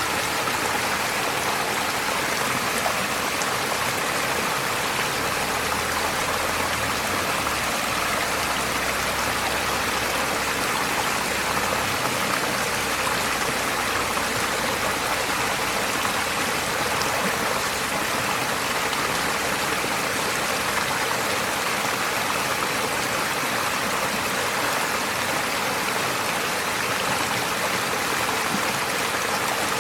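Forest stream flowing steadily, an even rush of running water.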